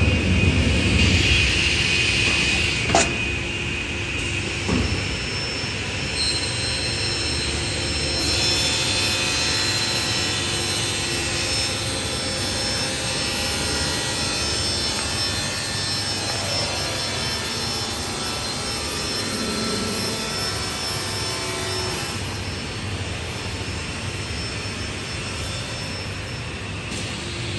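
Panel saw running steadily as its circular blade cuts through board, with a couple of sharp knocks in the first few seconds.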